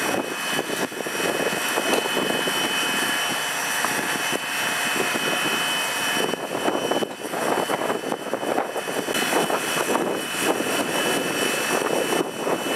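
Fire engine's water pump running to supply the hose lines: a steady rushing drone with a thin high whine running through it.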